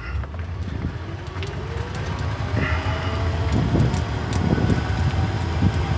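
Old, beat-up electric utility vehicle driving on a paved road: a steady low rumble and cab rattle, with a thin motor whine rising in pitch over the first few seconds as it picks up speed.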